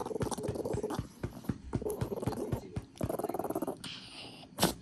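A dog's unusual sneezing fit: a rapid run of short noisy breaths, about four a second, then one short, sharp sneeze near the end.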